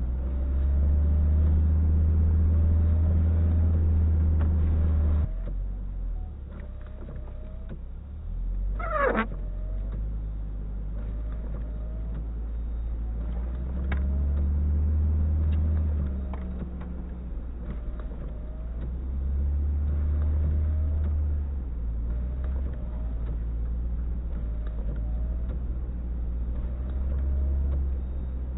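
Low vehicle engine rumble that swells and eases several times, with a brief wavering high squeal about nine seconds in.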